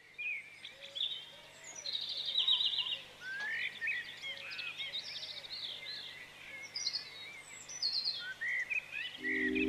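Several birds singing at once: overlapping chirps, quick trills and short whistled notes. Near the end a sustained low chord of music comes in.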